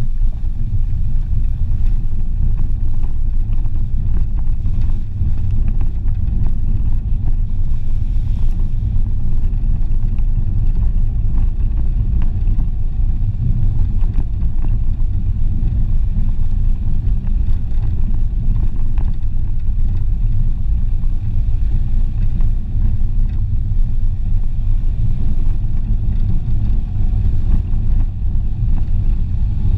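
Renault Clio driving along a rough gravel and dirt road: a steady low rumble of tyres and engine.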